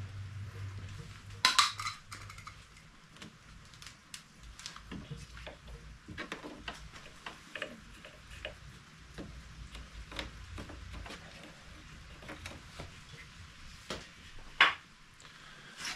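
Scattered clicks and clinks of hand tools and small parts being handled at a vehicle's front bumper, with a louder clatter about a second and a half in and another near the end.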